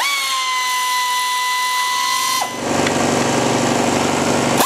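Pneumatic air ratchet running on the valve-cover bolts of a small engine, loosening them. It gives a steady high whine for about two and a half seconds, then a rougher, noisier buzz to the end.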